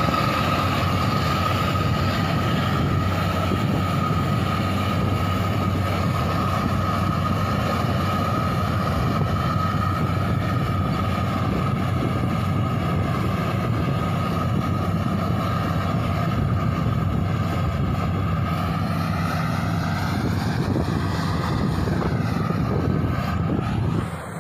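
Crown Sumo 106 rice combine harvester running steadily under way, a continuous engine hum with a steady high whine over it.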